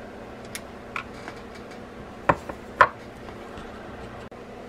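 Sharp light clicks and taps of a micro screwdriver and the spool of a Penn Spinfisher V 6500 reel being handled on a wooden bench as the drag screws are worked loose. There are four clicks, the two loudest close together a little past the middle, over a faint steady hum.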